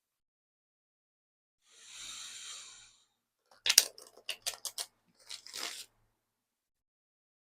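Oracle cards being shuffled and handled: a soft sliding hiss of cards, then a quick run of sharp snaps and clicks as the deck is worked, and a brief rustle.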